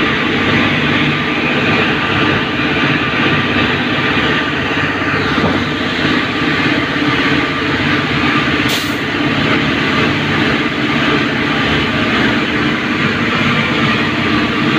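Steady, loud hum and whine of a WAG-7 electric locomotive's on-board machinery running, heard from inside its cab.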